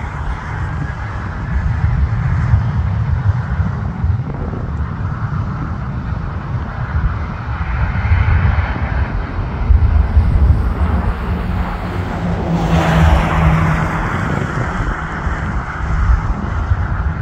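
Boeing 737 jet engines at takeoff power on the takeoff roll, heard from behind as a loud, continuous roar with a deep rumble that swells and fades as the aircraft pulls away.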